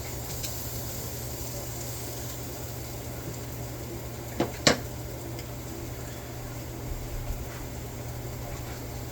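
Steady kitchen hum and hiss while birria tacos are being cooked, with two sharp clinks of a utensil against a pan about halfway through and a couple of fainter taps later.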